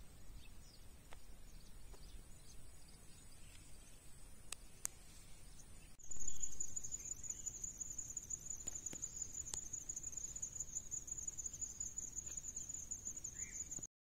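Insects trilling: a faint steady high whine, then from about six seconds in a louder, rapidly pulsing high trill that cuts off suddenly near the end.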